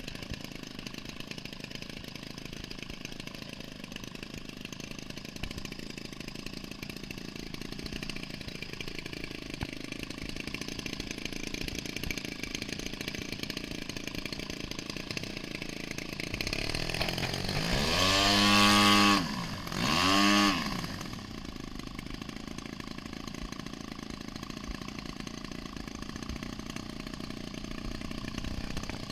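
DLE-55 55cc single-cylinder two-stroke gasoline engine on a large RC Decathlon model plane, idling steadily. About two-thirds of the way through it is revved up twice, a longer run-up and then a short blip, each rising and falling in pitch before it drops back to idle.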